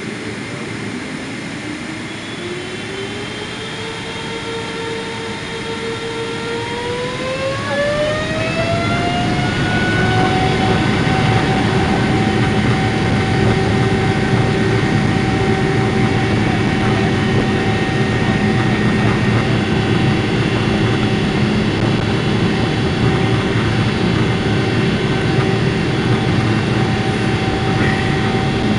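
Boeing 777-300ER's General Electric GE90-115B turbofan spooling up, heard from inside the cabin. Its whine rises in pitch in two steps over the first ten seconds and grows louder, then holds at a steady higher pitch.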